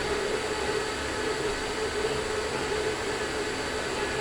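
Steady mechanical noise, an even rushing sound with a constant hum in it that does not let up: the daily nuisance noise coming through where a wall is down.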